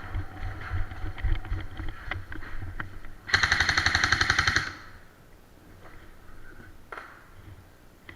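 Airsoft gun firing one rapid full-auto burst of about a second and a half, a fast even rattle of shots about three seconds in.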